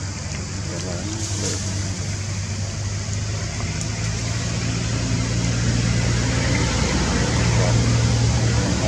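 A steady low engine hum with a continuous hiss over it, slowly growing louder.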